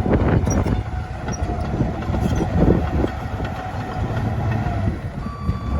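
Komatsu D51PX-22 bulldozer's diesel engine running, with irregular clanks and rattles from the machine. Near the end a steady beep tone from its reverse alarm starts up.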